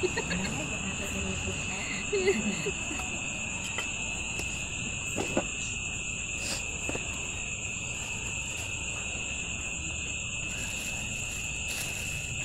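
Steady, high-pitched insect chirring, with a few sharp knocks of a kitchen knife against a wooden chopping board as raw pork belly is cut. The loudest knocks come about two and five seconds in.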